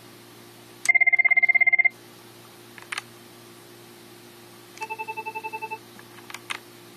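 Cisco IP phone ringtones: a loud, fast-pulsing two-tone trill about a second long, then a few seconds later a quieter pulsed trill of a different ring, also about a second long, with short clicks between them.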